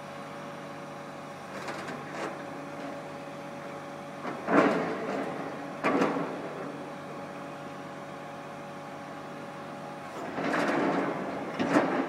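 MAIT HR130 rotary piling rig running with a steady engine hum, broken by loud knocks from the rig's drilling gear: one about four and a half seconds in, another about six seconds in, and a cluster near the end as the drilling tool is lowered onto the ground to start boring a pile.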